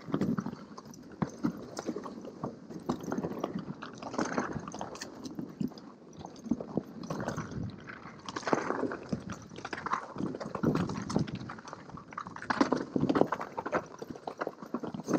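Mountain bike descending a rough, rocky singletrack with frost and snow on it: tyres crunching and bumping over stones, with an irregular clatter of knocks and rattles from the bike, in louder clusters every second or two.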